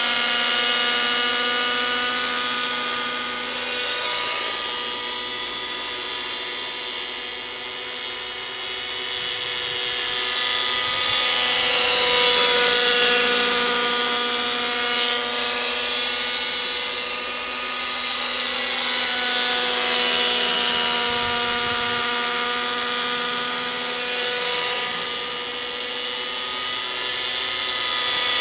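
Align T-Rex 600 nitro RC helicopter in forward flight: its OS 55 two-stroke glow engine and rotor give a steady high whine. The whine swells and fades and bends in pitch as the model passes back and forth.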